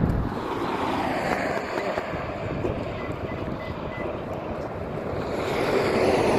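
Outdoor wind noise on the microphone mixed with road traffic: a steady rumbling hiss that grows louder near the end.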